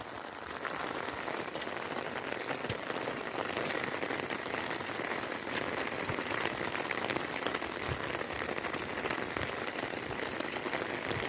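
Steady rainfall, with many individual drops ticking as they land.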